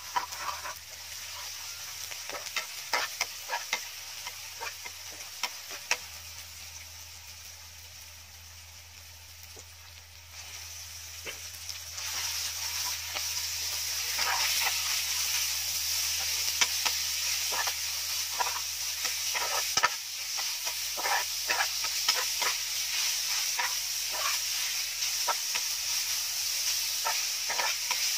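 Garlic and chilies frying in oil in a black frying pan, a metal spatula scraping and tapping the pan as it stirs. About ten seconds in, minced meat goes into the pan and the sizzle grows louder and steadier.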